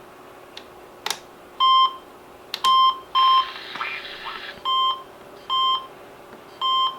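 RadioShack 12-253 weather radio giving short electronic key beeps as its buttons are pressed in the alert setup menu. There are six buzzy beeps of the same pitch, irregularly spaced, with a few faint button clicks and a short hiss in the middle.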